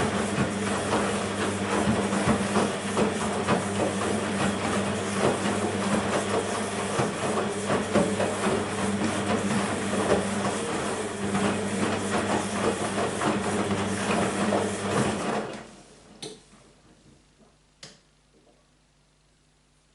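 BEKO WMB 51441 washing machine running, with water rushing over a steady electric hum; it cuts off suddenly about three-quarters of the way through, followed by two faint clicks.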